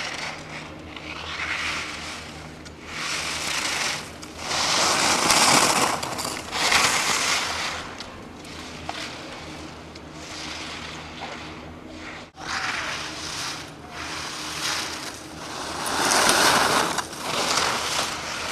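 Skis carving turns on hard-packed snow: the edges scrape and hiss in swells of about a second, one with each turn, loudest in the middle of the run and again near the end.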